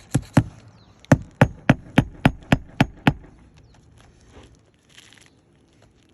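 Hammer driving roofing nails into an asphalt shingle: two lighter taps, then eight harder blows at about three a second, stopping a little past three seconds in.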